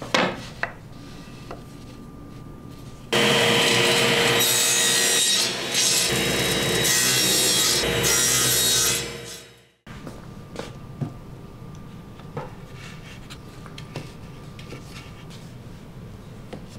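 Table saw cutting through a stack of thin plywood pieces: a loud, steady saw-blade whine that starts suddenly a few seconds in and stops after about six seconds. Before and after it, light wooden knocks and clacks of plywood panels and strips being handled.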